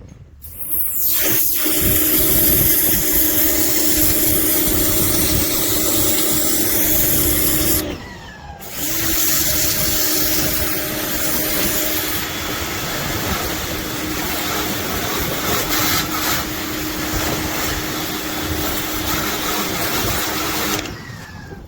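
Compact pressure washer running, a steady motor hum over a loud spray hiss. It stops briefly about eight seconds in and starts again.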